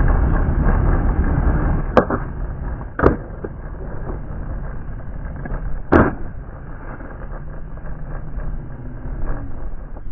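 Skateboard wheels rolling on rough asphalt with a steady rumble that quietens after the first few seconds. Three sharp wooden clacks, about two, three and six seconds in, from the board being popped and landing.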